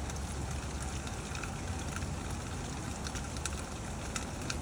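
Scattered light ticks of dripping water over a steady low rumble.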